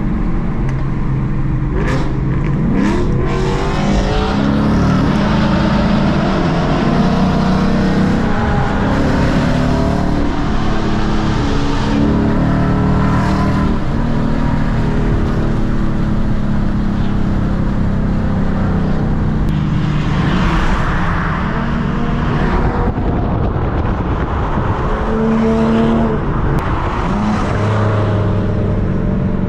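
Car engine running loudly and continuously, its pitch rising and falling as the revs change.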